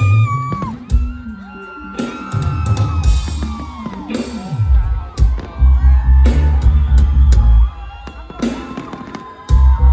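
Loud live concert music with heavy bass and drums and a singing voice, with whoops from the crowd. The bass drops out for a moment near the end, then comes back in.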